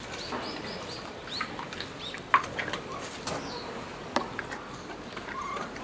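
Capybaras biting and crunching thin ice on a frozen water trough, giving sharp cracks, the loudest a little over two seconds in and another about four seconds in. A quick run of short high chirps comes near the start.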